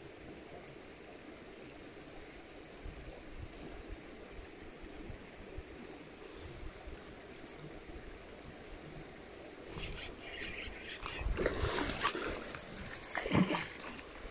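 Soft trickle of a small stream for the first ten seconds. From about ten seconds in come loud, irregular splashes as a hooked trout thrashes at the surface while it is reeled in.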